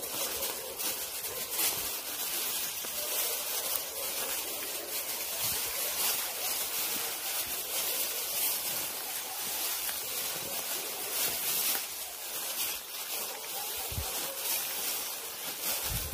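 Steady rustling and crunching of footsteps through dry grass and brush, with a couple of low thumps near the end.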